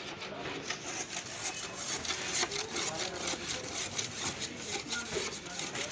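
A small hand tool scraping along the plastic edge of a car headlight in rapid, irregular strokes.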